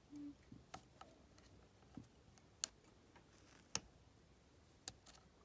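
Faint metallic clicks of a lock pick working the pins inside an Ace disc padlock's cylinder, a few sharp clicks about a second apart with quieter ticks between them.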